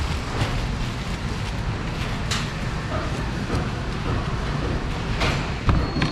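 Large kitchen knife cutting into a pineapple, several short crisp strokes of the blade through the flesh and rind, over a steady low background rumble.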